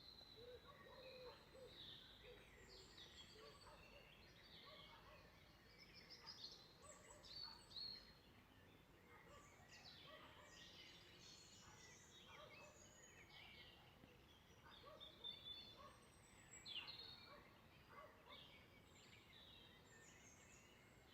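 Faint birdsong: short chirps and quick whistled phrases from small birds, overlapping one another.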